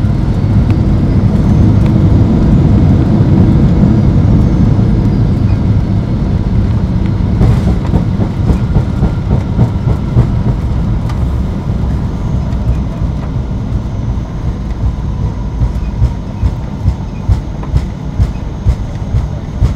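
Cabin sound of a Boeing 737-800 on its landing rollout: a loud, low rumble of the CFM56 engines and wheels that is strongest for the first few seconds and then eases as the aircraft slows. In the later part, regular thumps about twice a second come from the landing gear rolling over the runway surface.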